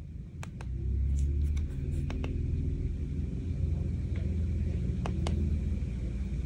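Short sharp clicks, two at a time at first and then singly and in a close pair, from a thumb pressing the keypad buttons of a Mileseey DP20 Pro laser distance meter, over a low steady rumble.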